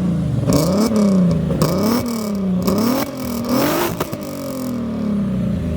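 Volkswagen Golf VR6 narrow-angle six-cylinder engine being revved in four quick blips, its pitch climbing and falling each time, then sinking back toward idle near the end.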